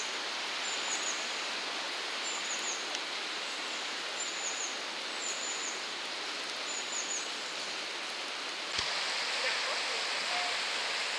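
Steady rushing of a fast whitewater river over rocks, with a small bird giving about six short, high chirps in the first seven seconds. About nine seconds in there is a low knock and the rushing becomes a little louder.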